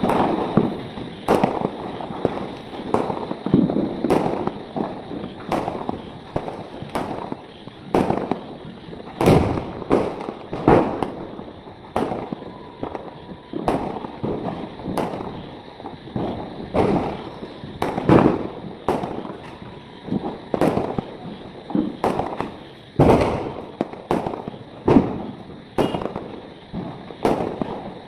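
Diwali fireworks going off in irregular, rapid succession: dozens of sharp bangs and cracks, some followed by a short echo.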